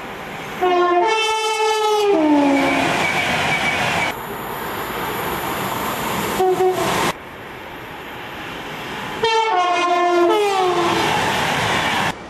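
Passing trains sounding two-tone horns. A two-note blast, low note then high, slides down in pitch as the train goes by and gives way to the rumble of the train. Then comes a short single horn toot, and then another two-note blast that also drops in pitch as the train passes.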